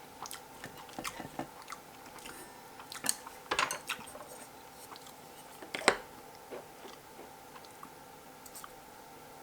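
A person eating: chewing and biting, with scattered small clicks and a few sharper crunching or utensil knocks, the loudest about six seconds in, over a faint steady hum.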